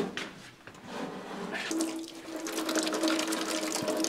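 A thin stream of water running from the tap of a plastic water canister over hands into a plastic sink basin, building up about half a second in. It opens on the fading end of a thud, and a steady low hum joins about halfway through.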